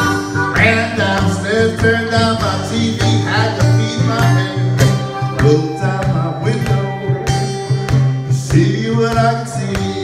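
Live acoustic country blues: two acoustic guitars, an archtop and a flat-top, playing a steady picked groove with a repeating bass line, while a harmonica plays bending notes over them.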